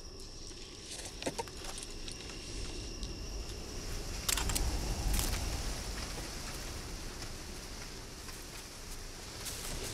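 Night jungle ambience: a steady high insect drone, with crackling rustles of dry leaf litter as someone crawls through it, the loudest about four and five seconds in, over a low rumble that swells in the middle.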